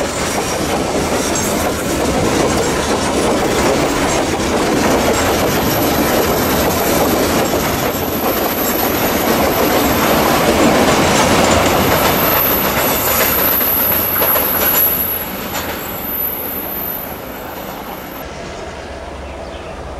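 Empty coal hopper wagons of a long freight train rolling past, wheels rumbling and clattering on the rails with a thin high-pitched wheel squeal. The noise fades after about fifteen seconds and the squeal cuts off near the end as the last wagons go by.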